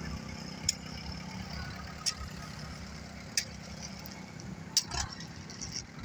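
Tractor's diesel engine running steadily at low revs, with sharp short knocks about every second and a half.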